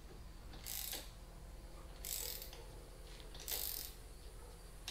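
Hand ratchet wrench clicking in short bursts about every second and a half as the nut is run down on a golf cart's upper A-arm bolt, tightened by hand instead of with an impact gun.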